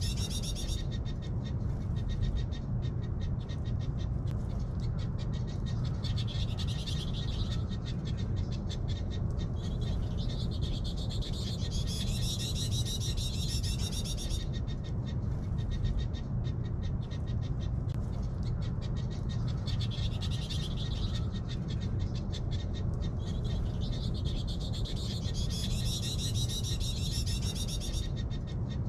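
High wavering animal calls, each about two seconds long, repeated every six or seven seconds over a steady low rumble and a fast, dense ticking.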